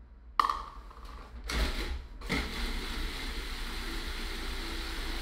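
Knocks and clatter at a Cuisinart food processor, the sharpest about half a second in, then its motor starts a little over two seconds in and runs steadily, pureeing fig sauce with raspberries.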